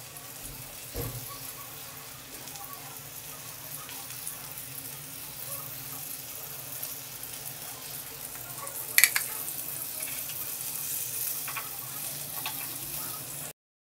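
Semolina- and rice-flour-coated lady fish shallow-frying in coconut oil in a pan: a steady sizzle with small crackles. There is a low thump about a second in and a sharp tap about nine seconds in, the loudest moment, then a few smaller ticks before the sound cuts off suddenly near the end.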